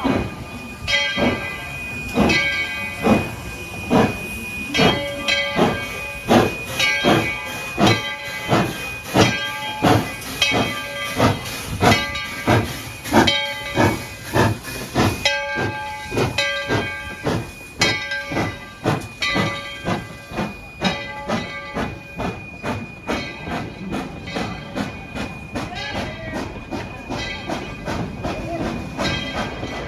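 Steam locomotive Tweetsie Railroad #12 (E.T.W.N.C. #12) working with steady exhaust chuffs, about two a second and getting a little quicker. Its 5-inch Crosby three-chime whistle sounds a chord over the beats for long stretches.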